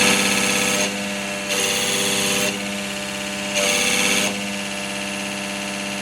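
Tata 2518 truck's diesel engine running after a rotary fuel pump overhaul: a steady engine note that gets louder and harsher three times, for about a second each.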